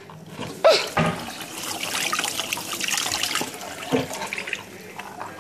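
Kitchen sink faucet running, water splashing into the sink basin with a steady hiss that starts about a second in and eases off near the end.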